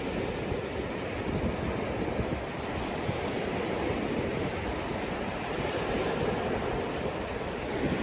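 Waves breaking on the shore in a steady wash, with wind buffeting the microphone.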